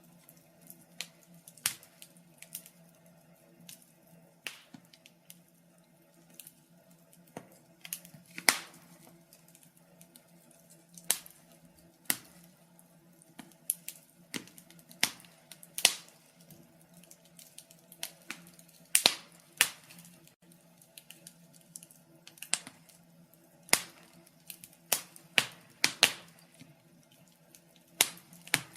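Wood fire crackling: irregular sharp pops and snaps, now single, now in quick pairs, over a faint steady low hum.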